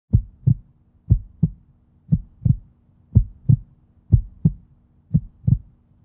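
Heartbeat sound effect: pairs of low thumps about a third of a second apart, one pair each second, over a faint steady hum.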